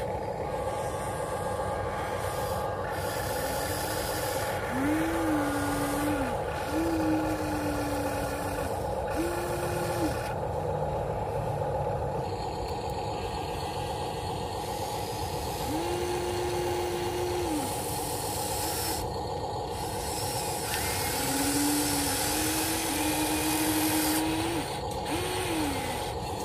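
Electric motors and gearboxes of a HuiNa 1593 RC excavator whining in short runs of a second or two as the boom, arm and bucket move, each run rising as it starts and dropping as it stops, over a steady hum.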